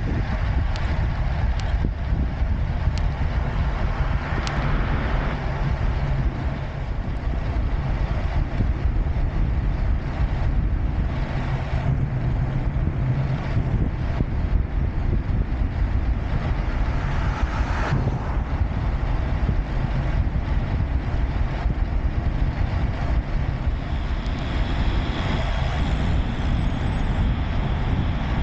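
Steady wind rumble on the microphone of a camera carried on a moving bicycle, with the rolling noise of the ride underneath.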